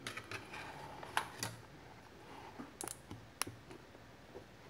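Scattered keystrokes on a laptop keyboard: several sharp, irregularly spaced clicks, the loudest about a second in.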